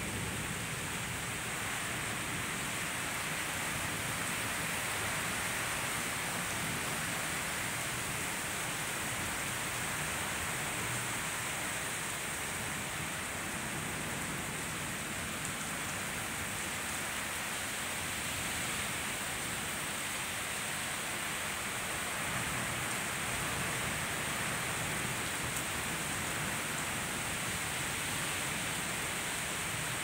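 Steady rain falling, an even hiss that holds without breaks.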